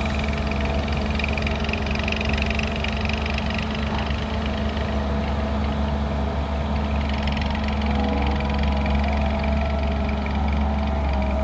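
Diesel engine of heavy farm machinery running steadily, a low, even drone with no change in speed.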